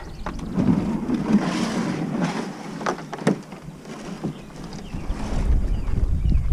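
Kayak paddle strokes splashing in shallow water as a sit-on-top kayak pushes off the bank, with a few sharp knocks of the paddle. Low wind rumble on the microphone builds near the end.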